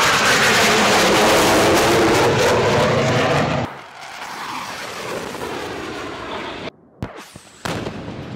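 F-15E Strike Eagle's jet engines at full power as it climbs away after takeoff, a loud rushing noise that sweeps up and down in pitch and cuts off abruptly about three and a half seconds in. A quieter jet pass follows, then a brief dip with a single sharp thump, and a bomb blast's rumble near the end.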